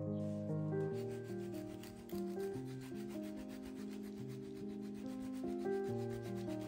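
Parmigiano Reggiano being grated in quick, even rasping strokes, over soft background piano music.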